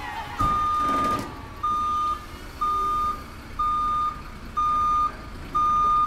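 Heavy vehicle's reversing alarm: a single high steady beep repeating about once a second, over a low engine rumble.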